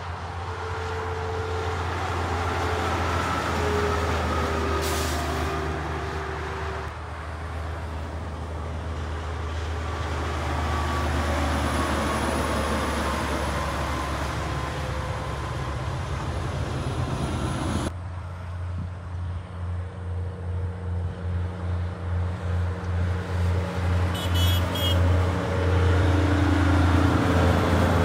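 Heavy trucks passing on a highway: a steady low diesel drone with tyre and road noise that swells as a B-double goes by. After a cut near the middle, a second semi-trailer approaches with a pulsing rumble that grows louder.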